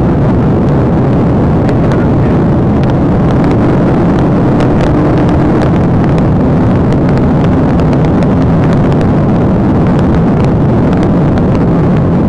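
Police patrol car driving flat out at over 100 mph, heard from inside the cabin: loud, steady road and wind noise with a low steady hum underneath.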